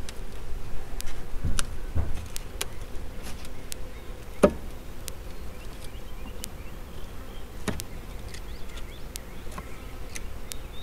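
A package of Italian hybrid honey bees buzzing steadily as its wooden lid is pried open, with a few sharp knocks and clicks from the lid, the loudest about halfway in.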